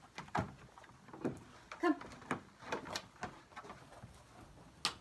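A dog's paws and claws knocking and clicking irregularly on a treadmill deck as she steps about, with one sharp knock just before the end.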